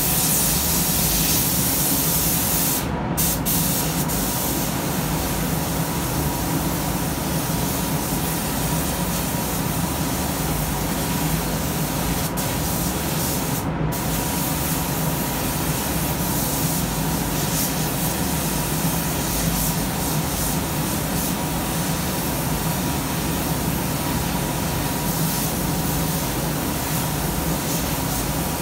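Compressed-air paint spray gun hissing steadily as paint is laid onto a car's tailgate, over a steady low hum. The hiss cuts out briefly twice, about three seconds in and about halfway through.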